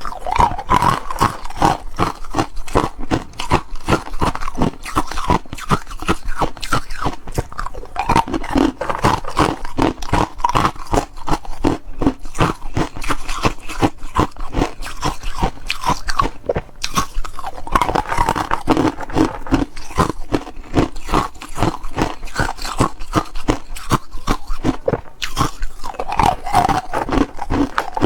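Hard ice being bitten and chewed: continuous rapid crunching, with many sharp cracks every second.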